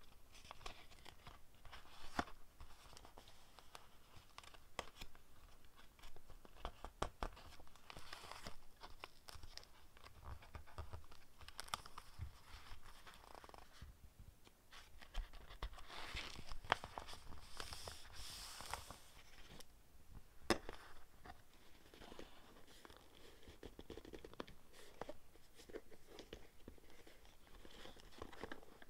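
Paper being handled in a notebook: pages rustling and turning, with paper pieces pressed and smoothed down under the fingers, and scattered light taps and clicks throughout.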